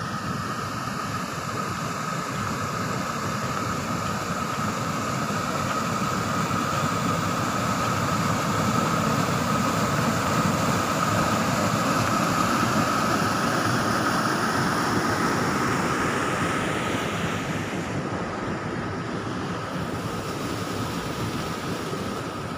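Irrigation water rushing through a sluice gate into a stone-lined canal: a steady roar of white water that grows louder through the middle and eases off near the end. A thin steady high tone runs underneath.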